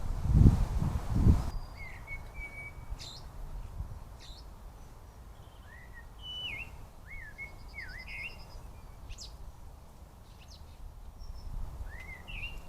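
Small woodland birds calling: short chirps and swooping whistled notes, with a brief trill about halfway through. Low rumbling thuds fill the first second and a half.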